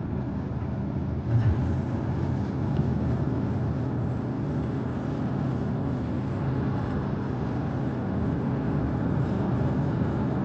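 Steady engine and tyre noise inside a moving car's cabin, with a brief thump about a second and a half in.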